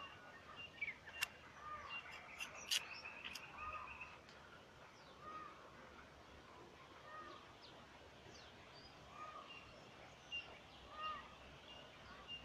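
Faint birdsong: a short arched call repeated about every second and a half, with thin higher chirps between. A few sharp clicks sound in the first three seconds.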